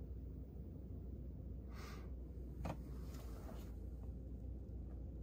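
Steady low hum of the Boeing 777 flight deck with the APU not yet running, broken by a short rustle about two seconds in and a sharp click shortly after as a hand handles the overhead panel.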